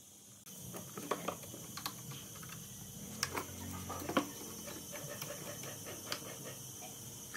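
Irregular clicks and knocks of a screw bar clamp being fitted and tightened on a wooden board at the edge of a workbench, metal clamp parts tapping against the wood. The sharpest knock comes about four seconds in.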